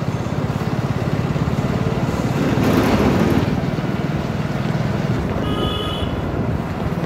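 Motorbike engine running at a steady riding pace, with wind buffeting the microphone and swelling for about a second a few seconds in. A short high-pitched tone, likely a horn, sounds about five and a half seconds in.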